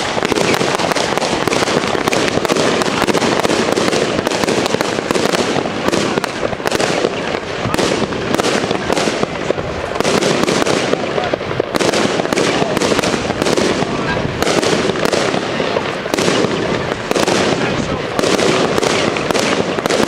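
Consumer fireworks going off in a dense, continuous run of bangs and crackles, with shots launching and bursting in the sky throughout.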